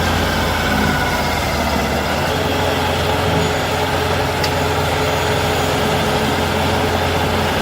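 A heavy machine's engine running steadily, with a faint steady whine that comes in about two seconds in and a single brief click about halfway through.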